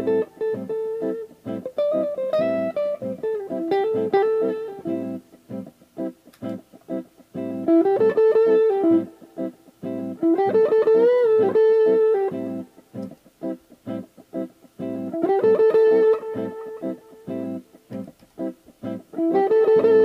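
Joodee JLP-55, a 1970s made-in-Japan Les Paul-style solid-body electric guitar with two humbuckers, played in single-note lead phrases with string bends, pausing between phrases.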